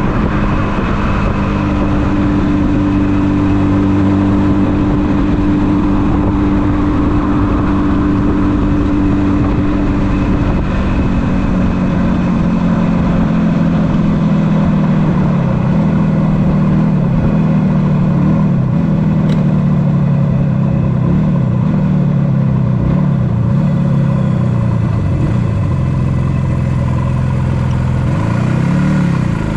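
1976 Yamaha RD400's air-cooled two-stroke parallel twin running steadily, then falling gradually in pitch as the motorcycle slows down, with a short rev up and back down near the end.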